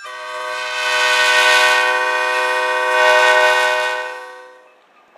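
Locomotive air horn sounding one long multi-note chord that swells twice, then fades out near the end.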